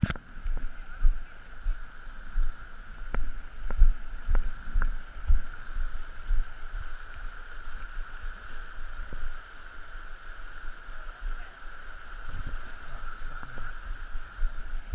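Shallow, fast river running over stones, a steady rushing. Irregular low thumps and rumbles on the microphone, with a few sharp clicks in the first five seconds.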